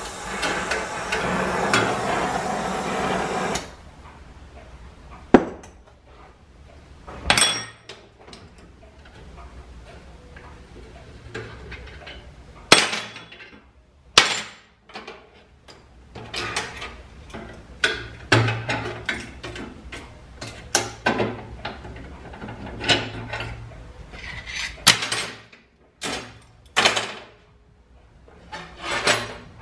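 Oxy-acetylene torch hissing for the first few seconds, then cut off abruptly. After that come a couple of dozen sharp, irregular metal knocks and clanks: hammer and tool strikes on steel at a bench vise as the heated conveyor bars are worked.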